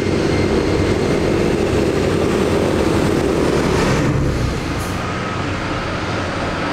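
Tractor's diesel engine running steadily as it drives past on the road. About four and a half seconds in the sound eases as it moves away, and the engines of more tractors come up from a distance.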